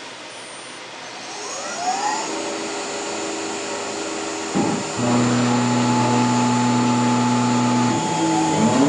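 CNC milling machine running. Its spindle spins up with a rising whine about a second and a half in, then holds a steady tone. A louder, steady hum comes in about five seconds in, and the pitch changes again near the end.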